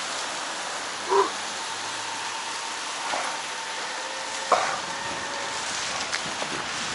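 Steady hiss of rain and tyres rolling over wet asphalt while riding, with two brief sharp sounds, one just over a second in and a louder one about four and a half seconds in.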